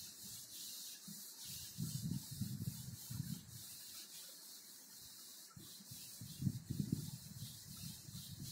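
Handheld whiteboard eraser rubbing back and forth across a whiteboard, wiping it clean in two spells of strokes, the second starting about halfway through.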